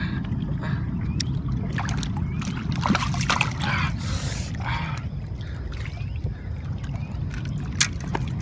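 Steady low rush of water pouring over a dam spillway, with scattered clicks and a brief burst of noise about four seconds in.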